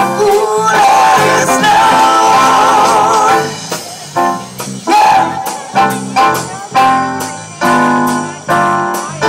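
Live band playing: a held, wavering melody line over the first three seconds or so, then a run of short chord hits about once or twice a second.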